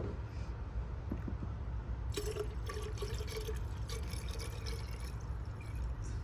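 Coolant being poured from a jug into a car's coolant reservoir while the cooling system is refilled after a water pump replacement. The pour starts about two seconds in, with a filling tone, and lasts about three seconds.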